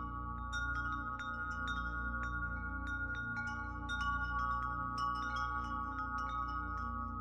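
Background music of high, tinkling chime-like notes struck several times a second, ringing over a steady sustained drone.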